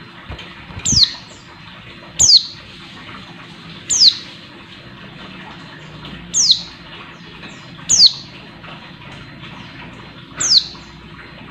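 A caged female white-eye (pleci) gives six short, sharp calls. Each call drops steeply in pitch, and they come one every one to two and a half seconds over a steady background hiss. It is the female's call to a male, used to rouse male pleci. There are a couple of soft low thumps in the first two seconds.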